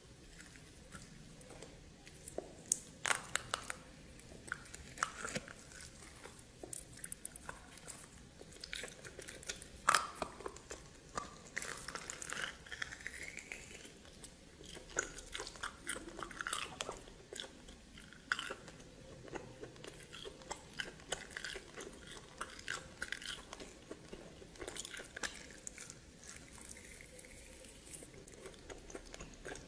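A person biting and chewing steamed snake close to the microphone, with many irregular sharp crunches and clicks.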